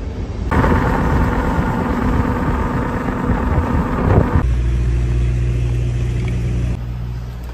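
Car on the move: loud road and wind noise, switching abruptly to a lower, steadier engine hum partway through.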